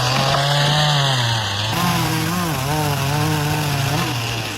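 Chainsaw engine running at high speed, its pitch steady at first, then dipping about a second and a half in and wavering up and down, as when the saw is loaded in a cut.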